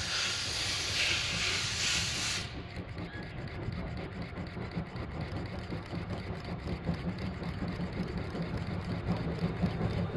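C58 steam locomotive approaching: a loud hiss of steam from the cylinder drain cocks stops suddenly about two and a half seconds in. A low running rumble with a regular beat remains and grows louder as the engine nears.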